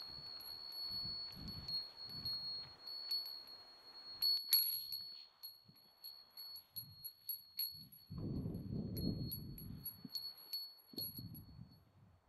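A small bell, a hiker's bear bell, jingling with a steady high ringing tone, struck again and again as the wearer walks, loudest about halfway through. A low rumbling noise comes and goes in the second half.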